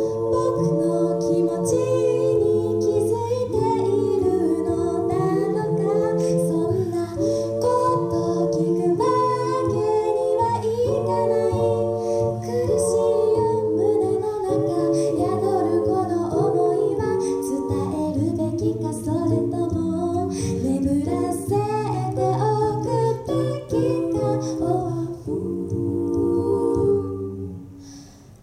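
Small a cappella group singing in close harmony, several voices holding chords over a low bass line with light ticking vocal percussion; the singing dies away near the end.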